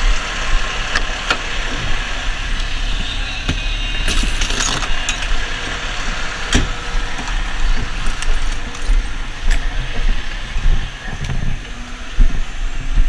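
Fire engine's engine running steadily with a low rumble, with clinks and rattles of equipment being handled beside the truck and a burst of metallic jangling about four seconds in.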